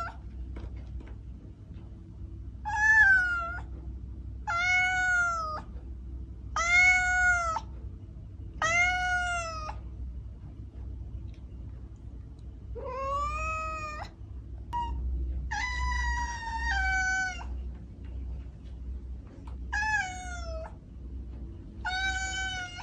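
Domestic cat meowing again and again: about eight meows, each under a second, roughly two seconds apart, with a pause of a few seconds partway through. Under them runs a low steady hum.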